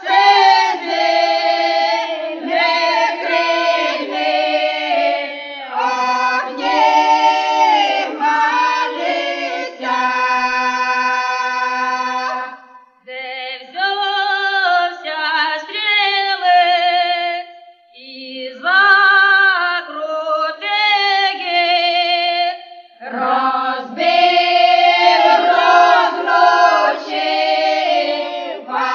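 Vocal music: a group of voices singing together as a choir, with two short breaks about 13 and 18 seconds in.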